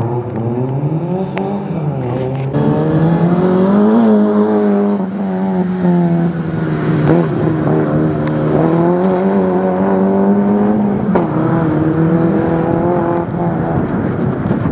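Peugeot 106 rally car's engine driven hard, its pitch climbing under acceleration and dropping back at each gear change or lift, over and over. A couple of short sharp cracks come around the shifts about seven and eight and a half seconds in.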